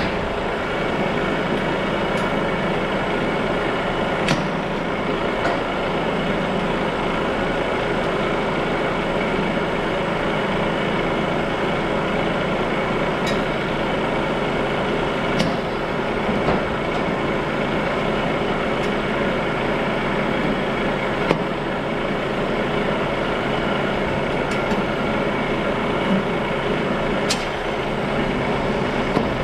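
Truck tractor's diesel engine idling steadily, with a few sharp clicks and knocks scattered through it as the trailer's air, electrical and ABS couplings are unhooked.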